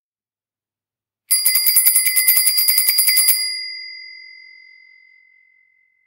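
Bicycle bell rung rapidly, a fast trill of about ten strikes a second for some two seconds, starting about a second in. It is then left to ring out, its clear tone dying away over about two seconds.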